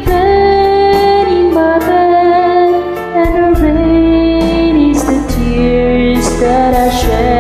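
Music: a song with a woman singing long held notes over bass and instrumental backing.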